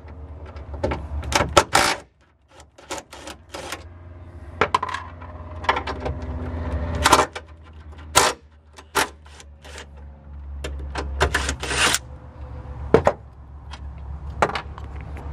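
Cordless DeWalt drill spinning a socket to back out 12 mm bolts from a sheet-metal bracket, its motor running in spells among irregular sharp metallic clinks of socket, bolts and metal.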